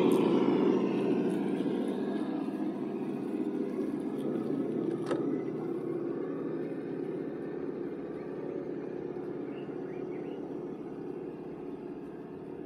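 A 6x6 Unimog driving, its engine and running noise steady and slowly fading away, with a single sharp click about five seconds in.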